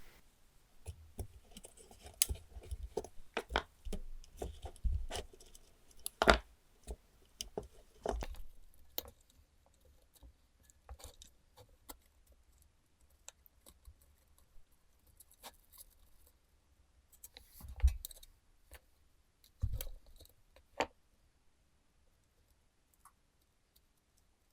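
Scattered clicks, taps and light rattles of hands handling wires and small tools on a workbench. It is busiest in the first eight seconds, with a few louder knocks later on and near quiet toward the end.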